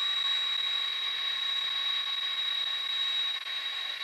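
McDonnell Douglas KC-10 Extender's General Electric CF6 turbofans running at taxi power: a steady high-pitched whine over a lower steady tone and a hiss, easing slightly near the end.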